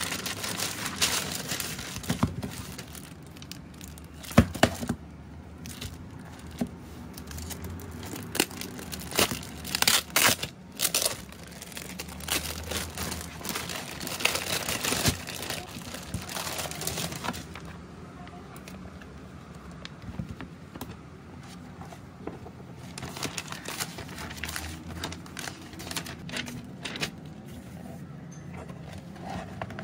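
Clear plastic wrapping crinkling and tearing as it is pulled off a magazine by hand. Near the end, the magazine's glossy pages rustle as they are turned.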